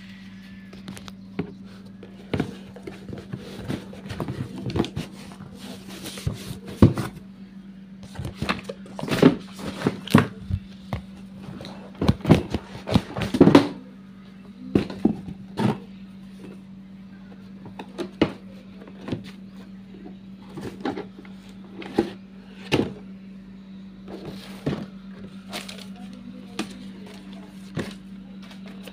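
Gift-wrapping paper and cardboard packaging being handled, unwrapped and torn open: irregular crackles, rustles and knocks, densest in the first half, over a steady low hum.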